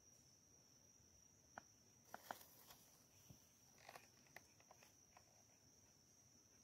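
Near silence in the woods: a steady high-pitched insect drone, with a scatter of faint clicks and rustles in the middle.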